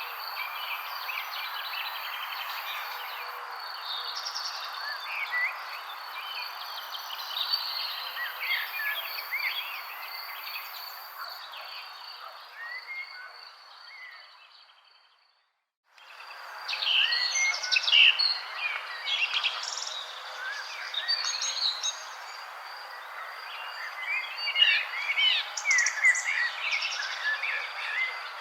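Many wild birds chirping and calling over one another in a dense chorus, with a steady high buzz behind them. Halfway through, the chorus fades out to silence and comes back a second later, a splice between recordings.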